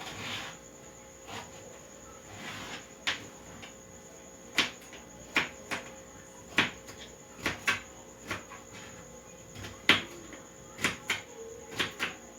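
Knife chopping potatoes on a cutting board: sharp, irregular knocks, roughly one to two a second. A faint steady high-pitched tone runs underneath.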